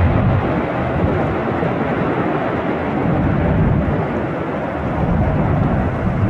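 Steady, loud rumble of jet airliner engines, with wind buffeting the microphone.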